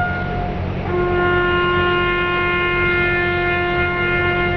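Brass horn playing a slow call in long held notes: one note fades at the start, and about a second in a lower note begins and is held for nearly four seconds. A steady low rumble runs underneath.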